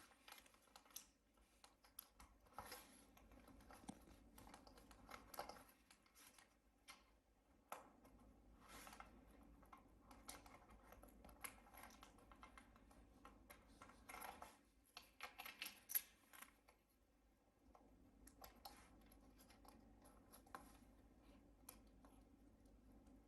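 Faint, irregular clicks and scratches of small plastic and metal laptop parts being handled during reassembly, with a cluster of them about two-thirds of the way through and one sharper click among them.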